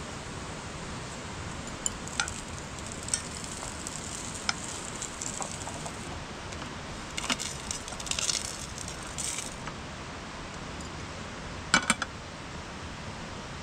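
Steady rush of a creek, with scattered light clinks and rattles of small hard objects being handled, and a sharper double clink about twelve seconds in.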